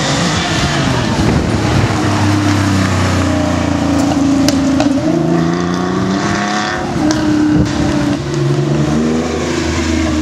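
TVR sports car engine accelerating hard, its revs climbing and dropping several times as it pulls away and changes gear.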